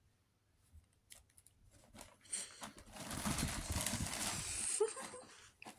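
A kitten scrambling through a fabric cat tunnel: the tunnel's fabric rustles with soft thumps of paws for about three seconds, starting about two seconds in after a few faint clicks.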